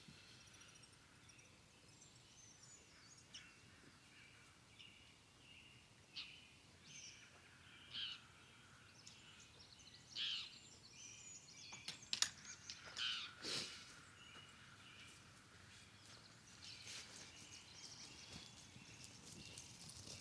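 Wild birds singing faintly in short, scattered chirps and phrases, with a few louder calls in the middle.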